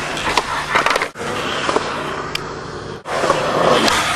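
Skateboard wheels rolling on concrete, with several sharp clacks of the board popping and landing. The sound cuts off abruptly twice, about a second in and about three seconds in.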